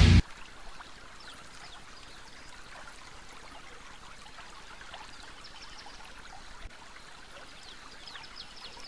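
Music cuts off a moment in, leaving a dog-mounted GoPro's own outdoor sound: a low, steady noise with faint small ticks and chirps scattered through it.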